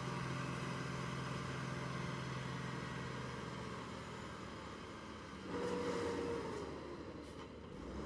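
Diesel engine of an asphalt distributor truck running steadily at low speed while spraying emulsion, slowly fading. About five and a half seconds in a second engine sound swells, with a whine that slides down in pitch.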